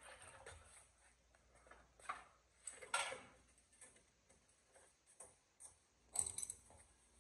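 Faint, irregular clicks and knocks of metal, a few at a time with quiet gaps between, as a BMW E36 engine and gearbox hanging from a chain are worked out of the engine bay by hand.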